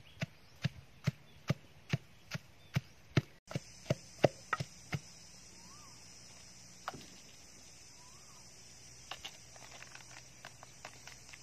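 Wooden pestle pounding in a clay mortar, steady strokes a little over two a second. The pounding stops about five seconds in, followed by a single knock and then faint small clicks and rustles of handling.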